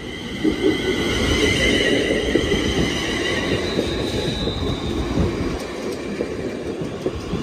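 London Northwestern Railway electric multiple unit passing close by: a steady rumble of wheels on rail that swells about half a second in, with a high whine over the first few seconds.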